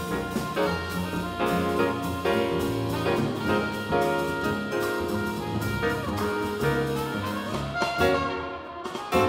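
Jazz quartet playing live: a trumpet carries the melody in held notes over piano, double bass and a drum kit with cymbals.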